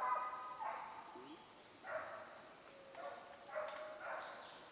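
Hunting dogs giving tongue in about five short, separate barks and bays, spaced irregularly, while cold trailing: working an old scent line of an agouti.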